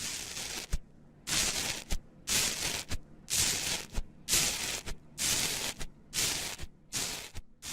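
Slime being squished over and over, giving short bursts of crackly hiss about once a second.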